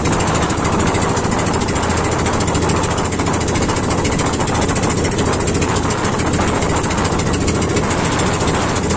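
Small engine of a motorized outrigger boat running steadily under way, with a fast, even chugging.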